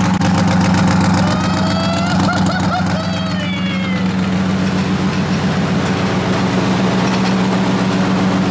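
Twin-turbocharged 2023 Ford F-150 engine idling steadily just after its first start-up.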